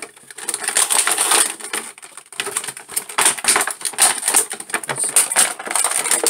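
Clear plastic packaging tray crackling and crinkling as it is handled to free an action figure: a dense run of irregular sharp clicks, with a short lull about two seconds in.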